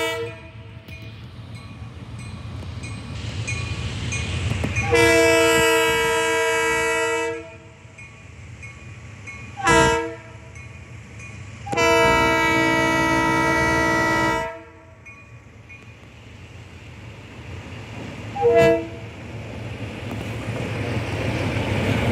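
Diesel locomotive air horn sounding the grade-crossing signal as a freight train approaches: the end of one long blast, a long blast about five seconds in, a short one, another long one, and a short toot near the end. A crossing bell rings faintly between the blasts. The locomotive's diesel engine and the train's rumble grow louder near the end as it reaches the crossing.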